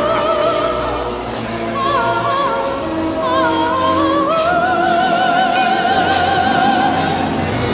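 Eerie theme-park ride music with a high, operatic voice singing with strong vibrato over sustained accompaniment; about four seconds in the voice slides up to a long held note.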